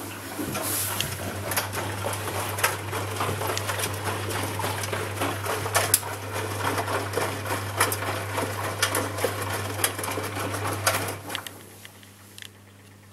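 Ardo A 500L washing machine running on its 60° cotton programme: a steady low hum with busy rattling and clicking over it, which stops about eleven seconds in.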